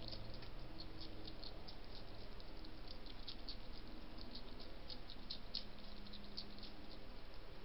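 European hedgehog chewing dry kitten kibble from a dish: quick, irregular crunching clicks, several a second, over a steady background hiss.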